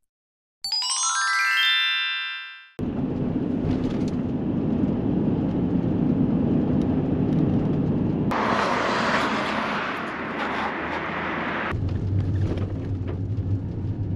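A rising sweep of chime notes, a short logo jingle that fades out. It is followed by steady road and engine noise from a moving car, with a louder hiss for a few seconds in the middle and a low steady hum near the end.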